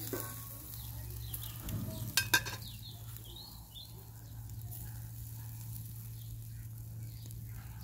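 Pork belly and chicken sizzling over a charcoal grill, with metal tongs clicking sharply against the grate a couple of times a little over two seconds in.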